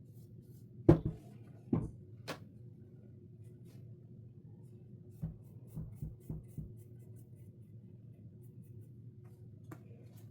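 A few sharp knocks and taps of hard objects being handled and set down on a work surface. The loudest comes about a second in, followed by two more, then a quick cluster of lighter taps around the middle, all over a steady low hum.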